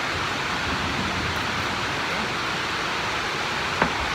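Heavy rain on a sheet-metal shop building, a steady hiss. Near the end comes one sharp metal clink as a piston and connecting rod is set down on the workbench.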